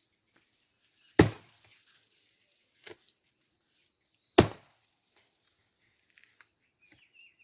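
Axe chopping dry, dead cashew wood: two heavy strikes about three seconds apart, with a faint knock between them. A steady high buzz of insects runs underneath.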